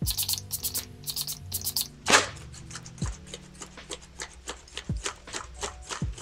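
Quick spray hisses over background music: several short bursts in the first two seconds, the loudest about two seconds in, then a light regular ticking.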